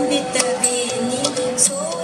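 Music for a classical Manipuri dance: a steady held drone note under a bending melodic line, with short sharp strokes scattered through.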